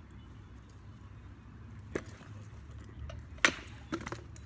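A few sharp knocks of rattan sword blows landing on shields and armor in armored sparring, the loudest about three and a half seconds in, over a low steady rumble.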